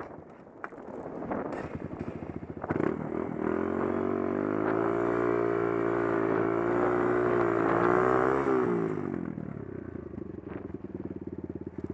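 Off-road 4x4's engine revving hard for several seconds, its pitch wavering under load, then dropping back to an even, pulsing idle near the end.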